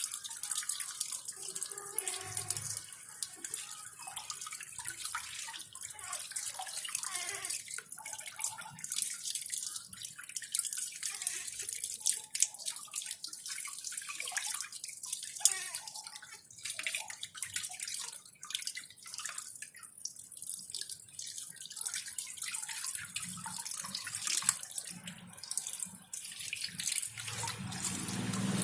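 Water running and splashing during a bath, with many small irregular splashes and drips over a steady hiss; the flow grows fuller near the end.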